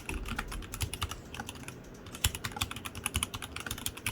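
Royal Kludge RK61 mechanical keyboard being typed on with its stock switches, a fast, irregular run of keystroke clicks.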